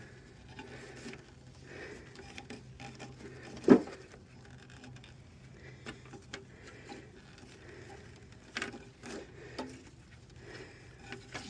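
Scattered rubbing and tapping as tangled coaxial cable and clothesline are worked loose from around a lawn mower blade, with one sharp knock a little under four seconds in and a few clicks near the end.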